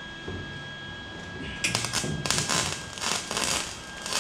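Wire-feed welder arc crackling in uneven spurts as it welds steel exhaust header tubing, starting a little under two seconds in.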